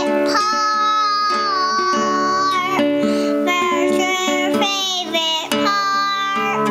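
A toddler singing long, high, wavering notes over an acoustic guitar being strummed.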